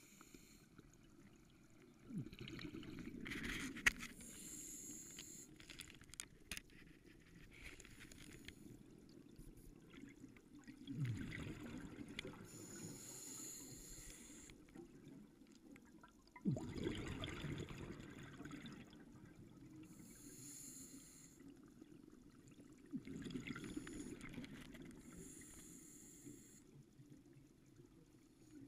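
Scuba diver breathing through a regulator, heard underwater through a GoPro housing. A low bubbling rumble of exhaled air comes about four times, every six or seven seconds, and a higher hiss of inhaling through the regulator follows each one.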